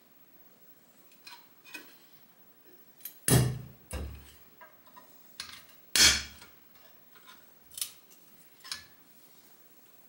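Screwdriver prying at the cut seam of a steel refrigerator compressor housing, the lid clanking against the shell as it is worked loose: a series of sharp metallic knocks and clinks, the loudest about three and six seconds in.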